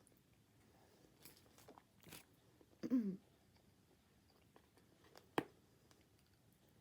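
Close-up eating sounds of a person chewing chicken wings: soft, quiet chewing and mouth noises, a short hummed vocal sound falling in pitch about three seconds in, and a single sharp click a couple of seconds later.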